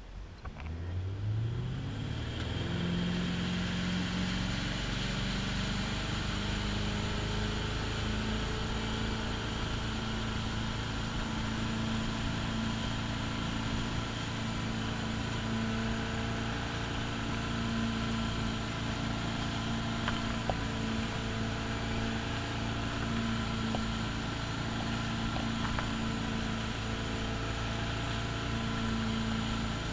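Ski boat engine accelerating hard from idle to pull a water skier up, its note rising over about the first two seconds. It then runs steadily at towing speed, with the hiss of water along the hull.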